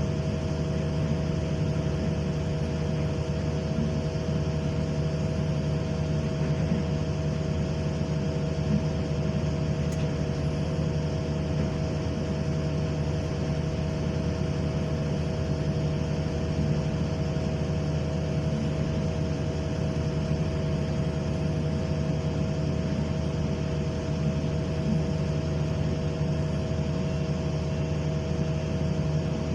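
Excavator's diesel engine running at a steady speed, a constant drone that does not change for the whole stretch.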